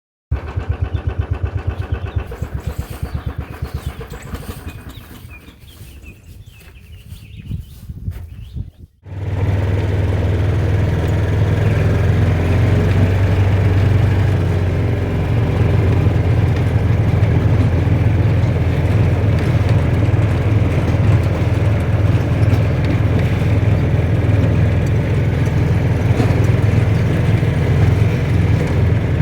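An engine running: a rapid, even chugging that fades away over the first eight seconds or so, then, after an abrupt break, a steady loud low engine drone.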